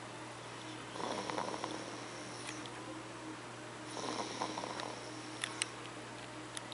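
A person snoring in sleep: two rasping snores about three seconds apart, each lasting a little over a second with a thin high whistle on it. Two sharp clicks sound shortly after the second snore.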